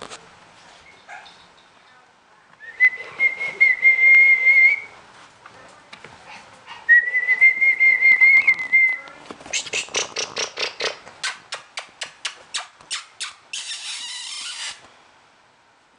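A person whistling two long, steady, high notes, each about two seconds. These are followed by a quick run of sharp clicks and a short hiss.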